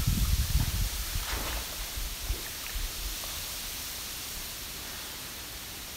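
Steady, even rushing hiss with no pitch or rhythm. It has low rumbling thumps in the first second.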